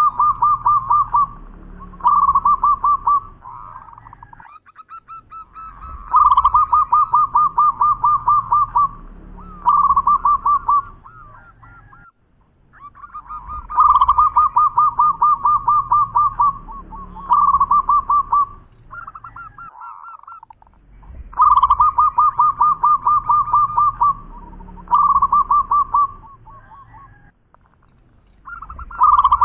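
Zebra dove (perkutut) singing its cooing song: bouts of rapid staccato coos, each a long pulsed phrase followed by one or two shorter ones, repeated about every seven seconds with short pauses between.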